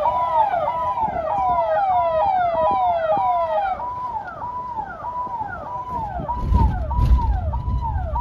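Electronic siren wailing in a fast repeating cycle, each cycle a quick rise, a short hold at the top and a fall, about every 0.6 s. A low rumble swells near the end.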